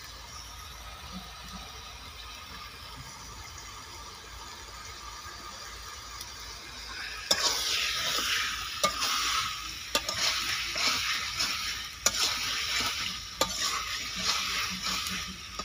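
Chicken masala frying down in a metal kadai, sizzling steadily and softly at first. About seven seconds in, a metal spatula starts stirring and scraping it around the pan: the sizzling grows louder and the spatula clicks against the pan several times.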